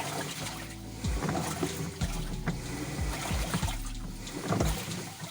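Top-loading LG washing machine agitating with water in the tub: the motor hums and the pulsator churns and splashes the water.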